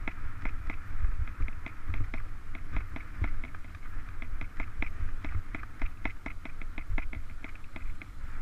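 A mountain bike riding over a bumpy grass singletrack, with a low rumble from the ride and a steady, rapid ticking of about four or five clicks a second.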